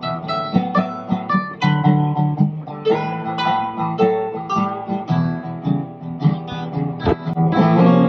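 Two acoustic guitars played together, picked and strummed notes, getting a little louder near the end.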